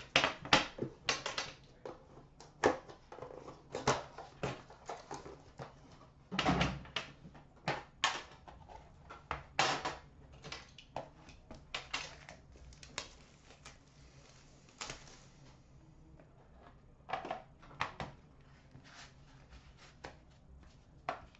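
Hands opening a boxed hockey card product: cardboard box and lid handled and set down, with irregular short taps, clicks and scrapes.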